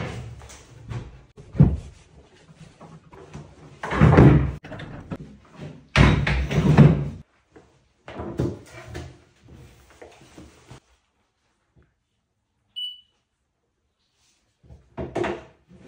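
A white cabinet-board panel being bumped and slid into place between kitchen base cabinets: a series of knocks and thuds with longer scraping noises, the loudest at about 4 and 6 seconds in. It goes quiet after about 11 seconds, apart from one short high beep.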